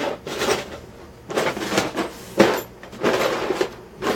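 A series of short scraping and rattling sounds from hard objects being moved around during a search for a magnet, about four or five in a row.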